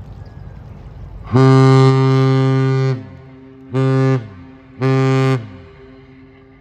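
Great Lakes freighter's horn sounding a salute: one long, deep blast followed by two short ones, each dropping in pitch as it dies away.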